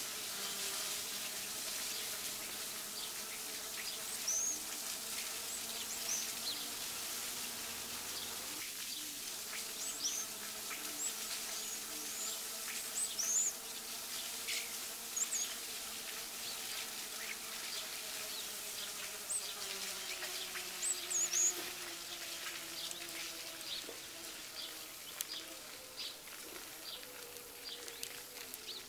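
Electric bicycle motor whining steadily as it rides, its pitch sinking a little about two-thirds of the way in, over a steady hiss. Birds chirp again and again above it in short high calls.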